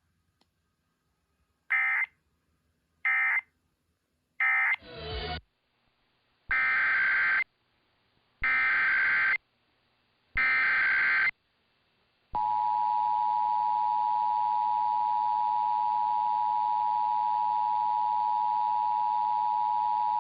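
Emergency Alert System test tones: three short bursts of screeching SAME digital data, then three longer header bursts of about a second each, then the steady two-tone attention signal held for about eight seconds.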